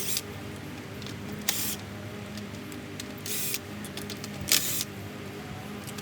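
Impact driver with a 19 mm socket firing in several short bursts, loosening a wheel's lug nuts, over a steady low hum.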